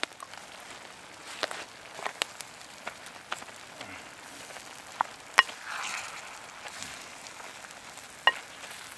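Lamb, onions and vegetables frying in a terracotta tagine over a campfire, a steady sizzle stirred with a wooden spoon from a few seconds in, with scattered sharp clicks and knocks.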